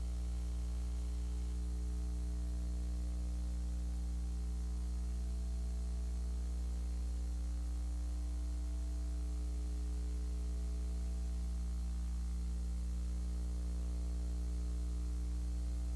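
Steady electrical mains hum with a buzz of its overtones over a faint hiss, unchanging throughout.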